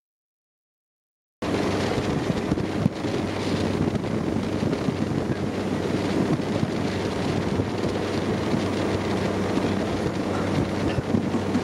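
Wind buffeting the microphone over the steady drone of a river ferry boat's engine and water rushing past the hull, cutting in suddenly about a second and a half in after silence.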